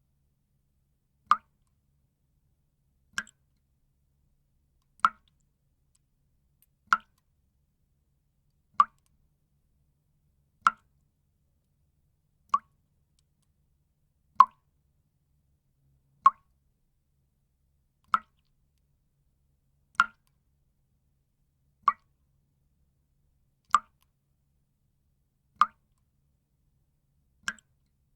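Water drops falling one at a time, each a short, sharp plop, evenly spaced about every two seconds with silence between.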